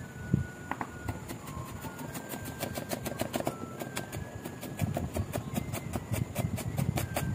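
Chef's knife chopping garlic cloves on a wooden cutting board: the blade knocks on the wood, a few scattered strokes at first, then a steady, rapid run of about four or five a second.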